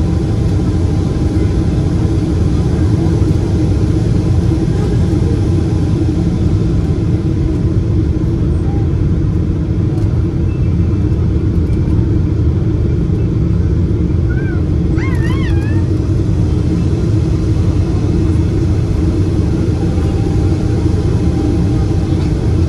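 Steady rumble of engine and airflow noise inside a Boeing 777 airliner's passenger cabin. About fifteen seconds in, a short wavering high sound rises briefly over it.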